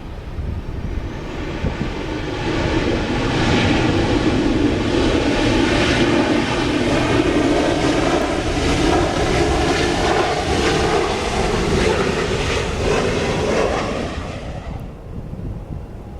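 Jet airliner engines roaring as a plane passes close by. The roar builds over the first few seconds, holds loud, then drops away suddenly about a second before the end. There is low wind rumble on the microphone underneath.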